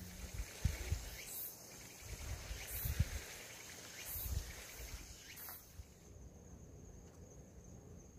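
Outdoor ambience with an insect calling: a short high chirp repeats about every second and a half over a thin steady high tone, and the chirps stop about two-thirds of the way through. A few soft low thumps come in the first half.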